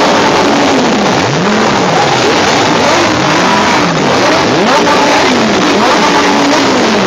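Lamborghini engines revving repeatedly, the pitch climbing and falling about once a second, over a loud steady engine noise.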